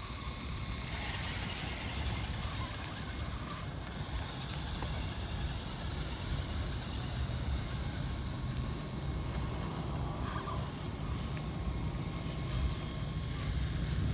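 Radio-controlled scale rock crawler with an electric motor driving over loose gravel and weeds: a faint motor whine with small clicks and crunches from the stones under its tyres, over a steady low rumble.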